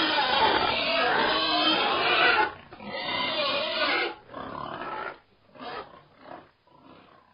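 Pig grunting: a dense run of grunts for the first two and a half seconds, then shorter separate grunts that grow fainter and further apart toward the end.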